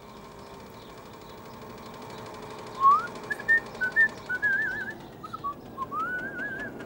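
A person whistling a cheerful, warbling tune with trills, starting about three seconds in, over a faint steady hum.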